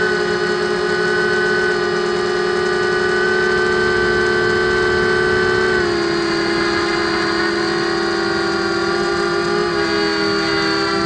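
Blade 200QX quadcopter's four brushless motors and propellers in flight, a steady multi-tone whine heard up close from its onboard camera. The pitch drops slightly about six seconds in.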